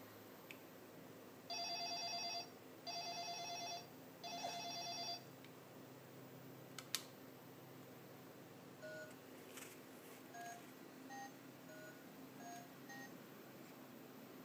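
Red toy flip phone playing a trilling electronic ring three times, each about a second long, then a click and a run of short beeps at changing pitches as its buttons are pressed.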